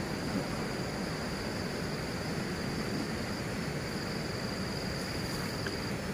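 Orchard ambience: a steady high-pitched insect trill over an even hiss. The trill breaks briefly in the middle and stops shortly before the end.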